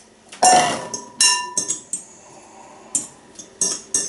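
Stainless steel bowl clanking twice, each knock followed by a metallic ring. From about three seconds in, a metal utensil clicks against a ceramic mixing bowl as grated potato is worked.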